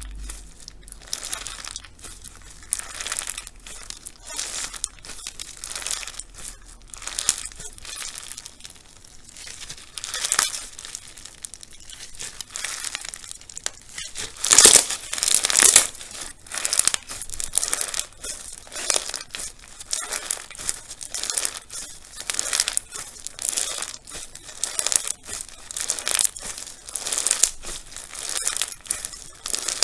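Crunchy slime being squeezed and pressed by hand, giving a steady run of short crunchy crackles, about one or two a second, loudest about halfway through.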